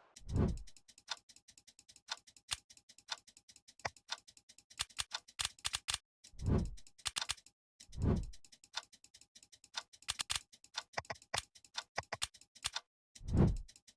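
Rapid, irregular ticking clicks, with four deep booms that drop in pitch.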